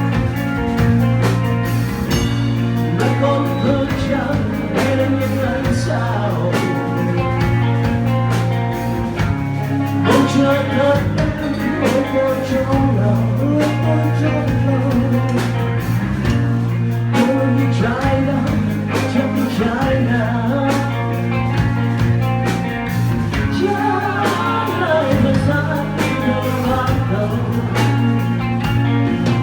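Rock music with electric guitar, drums and singing.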